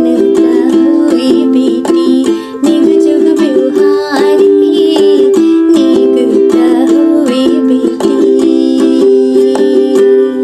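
Ukulele strummed in a steady rhythm, playing the accompaniment to a Bhojpuri wedding song.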